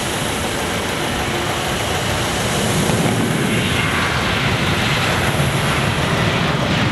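Boeing 737-800 jet running its CFM56-7B turbofan engines at departure power, a steady jet engine noise that builds slightly about three seconds in as the aircraft rolls down the runway.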